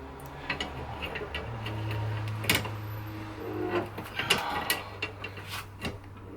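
Scattered metallic clicks and scraping from tools working a stubborn threaded part of a motorcycle shock absorber loose, a little at a time. A steady low hum runs underneath from about a second and a half in.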